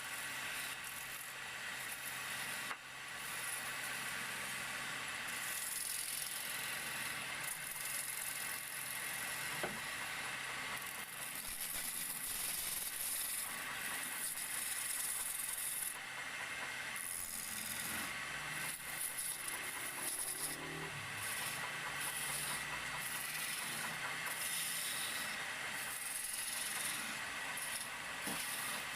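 Wood lathe running while a turning chisel cuts a spinning wooden charpai leg: a steady hissing, scraping shave with a faint steady whine. The hiss breaks off briefly several times as the tool leaves the wood.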